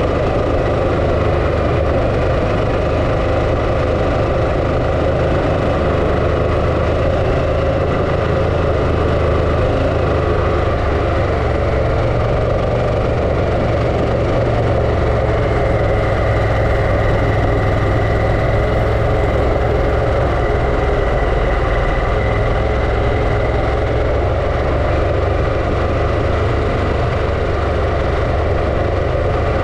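Harley-Davidson Pan America's V-twin engine running at a steady, unchanging pace throughout, with no revving up or down.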